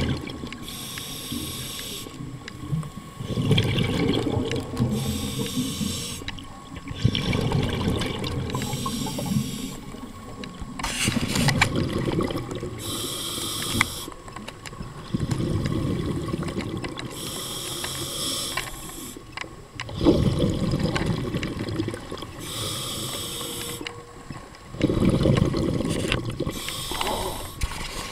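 Scuba diver breathing through a regulator, heard underwater: a short hissing inhale about every four to five seconds, each followed by a longer low rush of exhaled bubbles.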